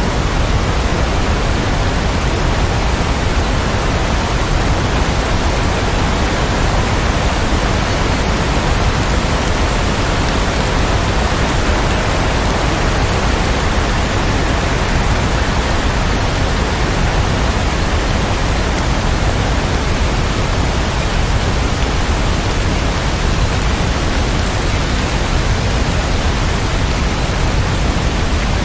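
Steady rain: an even, unbroken hiss with no separate drops or thunder standing out.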